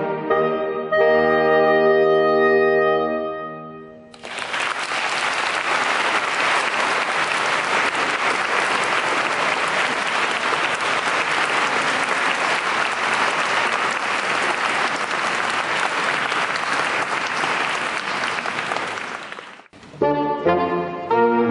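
A saxophone quartet, baritone to soprano, holds a final chord that fades out over the first few seconds. Audience applause follows and runs steadily for about fifteen seconds, then cuts off suddenly, and the quartet starts playing again near the end.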